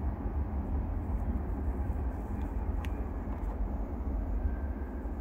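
Low, steady rumble of a departing freight oil train, fading slowly as it recedes down the line.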